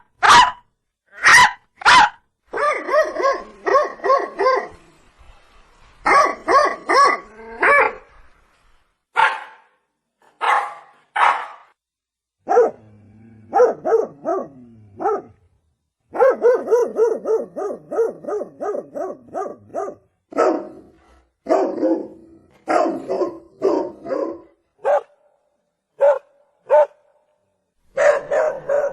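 A dog barking over and over, with single barks and quick runs of several barks separated by short pauses.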